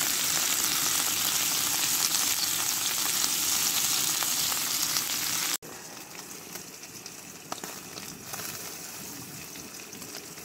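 Pieces of elk heart frying in a pan, a loud, dense sizzle. About five and a half seconds in it drops suddenly to a much quieter, thinner sizzle.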